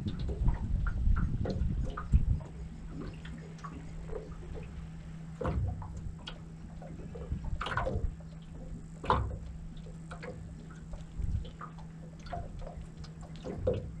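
Small water slaps and gurgles against the hull of an aluminium dinghy, with scattered short knocks and taps and a faint steady low hum throughout. The sound is busiest in the first two seconds or so.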